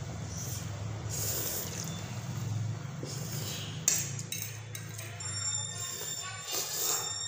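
Instant noodles being slurped from plates, with a fork clinking sharply against a plate about four seconds in. Music plays underneath.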